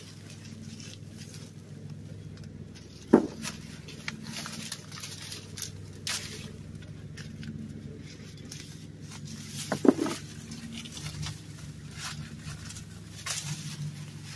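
Dry corn stalks, leaves and husks rustling and crackling as ears of field corn are picked by hand, with two loud thuds about three seconds and ten seconds in, over a low steady hum.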